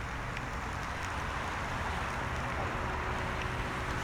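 Steady rushing of surf and wind on the shore, with a faint low hum joining about two-thirds of the way in.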